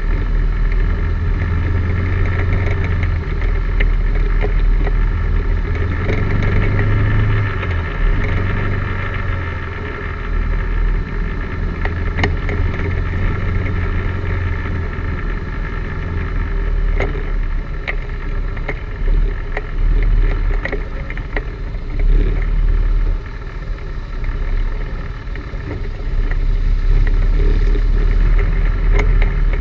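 ATV engine running steadily at trail speed, its level rising and falling with the throttle, with scattered knocks and rattles from the machine bouncing over a rough, rooty dirt trail.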